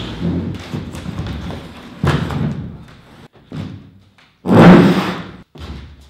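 A large board panel being shoved, tipped and set down on a concrete floor: a string of thuds and scraping knocks, about five in all, the loudest a little past the middle.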